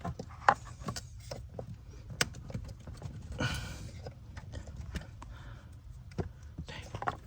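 Irregular clicks and knocks of plastic interior trim and clips being handled and worked loose by hand, with a short rustle about three and a half seconds in.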